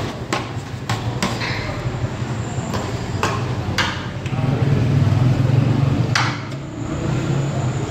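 Metal ladle clinking against large aluminium cooking pots and bowls while broth is ladled out, a few sharp clinks spread through, over a steady low hum that swells in the middle.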